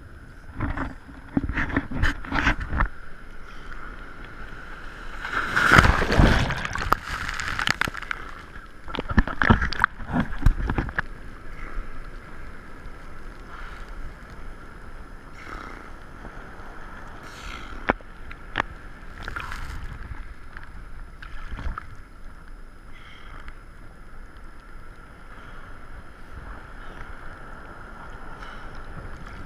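Sea water splashing and sloshing around a camera riding at the surface on a surfboard, with several loud rushes of splashing in the first ten seconds, then a steadier wash of water.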